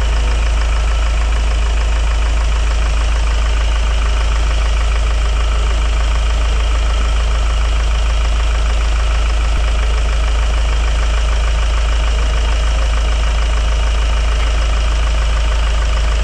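Hyundai Grand Starex engine idling steadily with a strong low rumble, running on freshly rebearinged idler pulleys: the earlier grinding from a failed idler bearing is gone.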